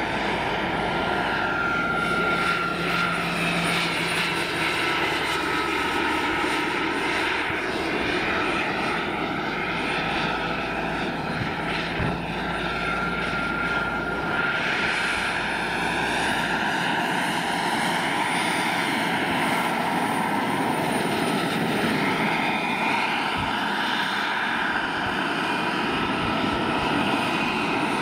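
Jakadofsky Pro 6000 gas turbine and rotor of a large-scale model Aérospatiale Gazelle helicopter in flight, running with a steady whine and rush. A thin high whistle comes and goes twice, and fainter tones slide up and down in pitch.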